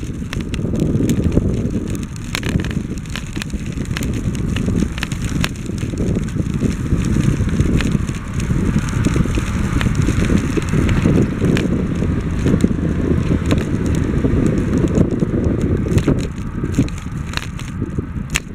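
Riding noise from a bicycle on a concrete trail: a rough, fluctuating rumble of wind on the microphone and tyre noise, with scattered clicks and rattles.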